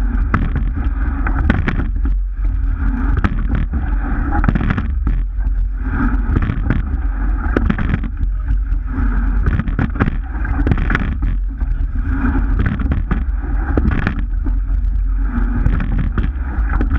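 Rowing shell under way: water rushing along the hull and wind buffeting the microphone, with knocks from the oars and rigging. The sound surges about every two seconds, in time with the rowing stroke.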